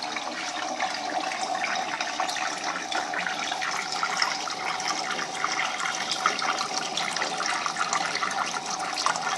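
Water draining from an aquaponics grow bed through a white return pipe and pouring into the fish tank below, a steady splashing.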